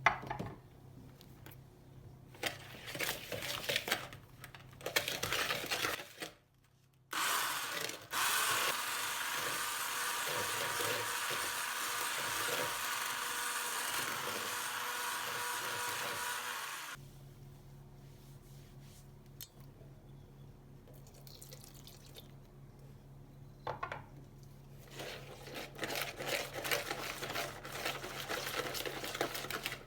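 Kitchen food-preparation sounds: utensils and dishes being handled with scattered clicks and knocks. About seven seconds in, a steady noise starts, like an appliance or running water; it lasts about ten seconds, then stops suddenly, leaving a low hum and more light handling.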